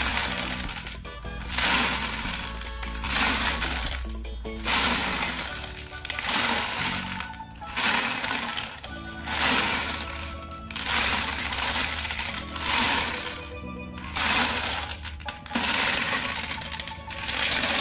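Background music with a regular pulsing beat, and glass marbles clattering as they tumble in the drum of a Bruder toy cement mixer truck and spill from its chute.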